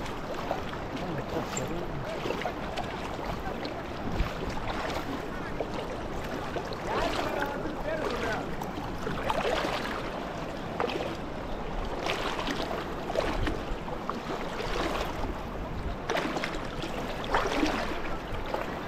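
Steady rush of flowing water, with faint voices in the background.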